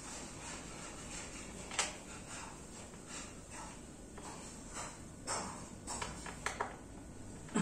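Scattered light clicks, taps and scrapes of hands and a screwdriver working on the plastic parts and screws of a Solimo office chair during assembly, with a few quick clicks close together near the end.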